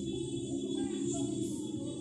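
Background music, with faint singing over it.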